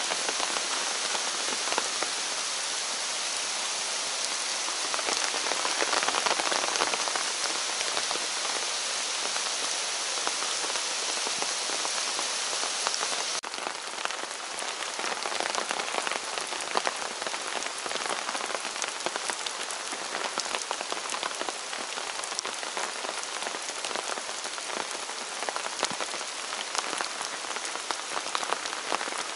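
Steady rain falling on the forest, a continuous hiss with many separate drops ticking. The highest part of the hiss thins a little about halfway through.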